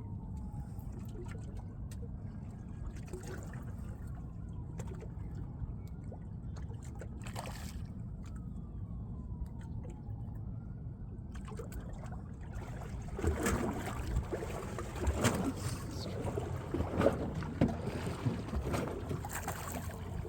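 Water lapping and sloshing against a small fishing boat over a steady low rumble. In the second half come louder splashes and knocks.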